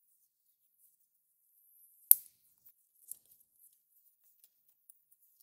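Flush cutters snipping the tail off a nylon zip tie: one sharp snap about two seconds in, then a smaller click a second later, among faint small ticks.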